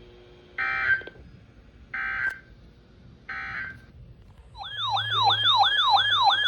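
Three short bursts of EAS/SAME digital data tones on a NOAA Weather Radio broadcast, the end-of-message code closing a warning, each under half a second and spaced a little over a second apart. About four and a half seconds in, a loud warbling siren-style alert tone starts, sweeping up and down about three times a second.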